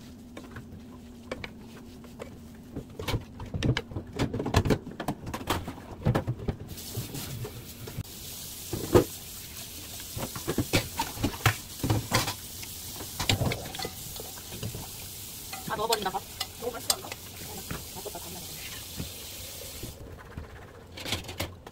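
Metal spatula and spoon scraping and knocking against a frying pan as rice with diced ham and mushrooms is stir-fried. From about seven seconds in until near the end, the pan also sizzles steadily.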